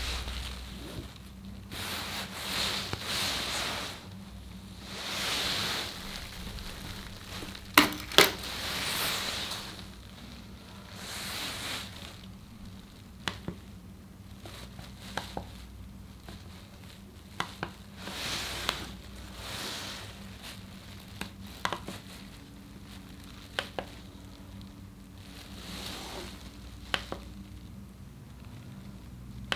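Small sharp clicks of the buttons on a Xiaomi Mijia portable electric air pump being pressed to set the pressure. A loud double click comes about eight seconds in, then single clicks every second or two. Soft rustling swells are heard between them. The pump's motor is not running.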